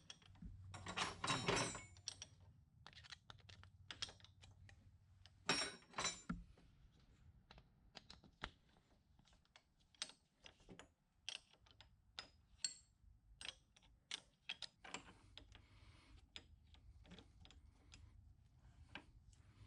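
A wrench and metal tool parts clicking and clinking on a lathe's quick-change tool post while the cutting-tool height is adjusted. The sharp clicks are scattered throughout, busiest about a second in and again around five to six seconds in.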